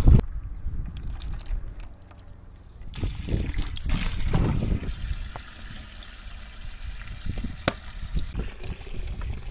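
Water running from a hose into plastic buckets, with a few light knocks.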